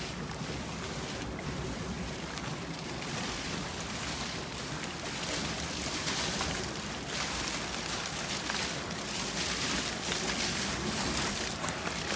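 Wind blowing across the phone's microphone: a steady rushing noise that grows a little stronger about five seconds in.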